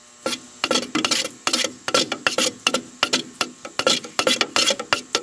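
A wooden paint stick stirring etching primer in its can, knocking and scraping against the sides in quick, irregular strokes, about three or four a second.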